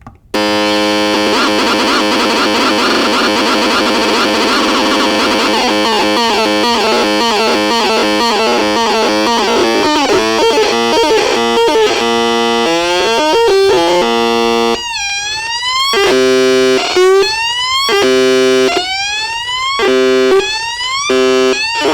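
Electronic sound module playing synthetic tones: a loud, buzzy, rapidly warbling tone, then stepping notes, then repeated gliding sweeps about once a second from about two-thirds of the way in.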